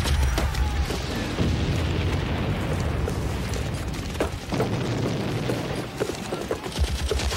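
Battle sound of booming shell explosions over a continuous low rumble, with a few sharp cracks of gunfire.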